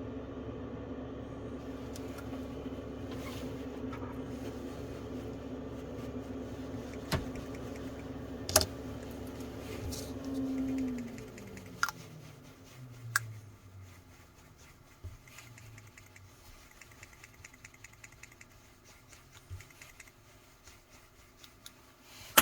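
A small electric motor running with a steady hum, then switched off about ten seconds in and spinning down, its pitch falling as it slows. A few sharp clicks sound along the way.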